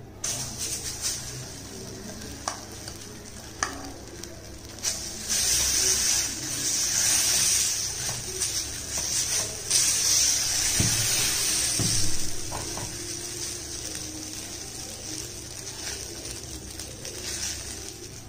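Thick moringa-leaf dosa batter sizzling on a hot dosa pan as it is poured on and spread with a steel spoon, the spoon clicking and scraping against the pan now and then. The sizzling is loudest through the middle and fades toward the end.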